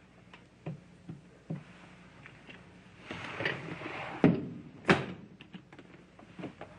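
Scattered knocks and clicks of a briefcase being handled and opened, with a short rustle and then two sharp snaps of its latches about four and five seconds in.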